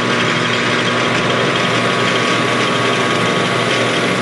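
Metal lathe running steadily at about 600 RPM, its motor and gear train giving an even mechanical hum with a few held tones, while it takes a light cut on a stainless steel hot cap held on a mandrel.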